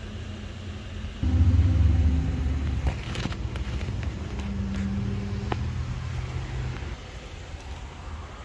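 Low vehicle rumble that starts suddenly about a second in and is loudest for the next two seconds, then falls in pitch and fades out near the end.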